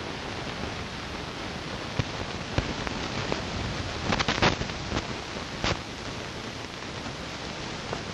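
Wind buffeting a camcorder's built-in microphone: a steady even hiss, with a few short crackles of handling noise about halfway through.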